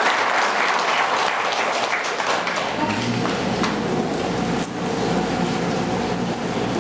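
Audience applauding for about the first two to three seconds, dying away into a low steady hum.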